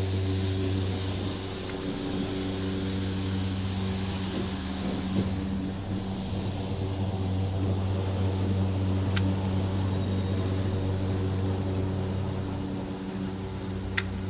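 Gasoline lawn mower engine running steadily under load while cutting grass. A short sharp click comes near the end.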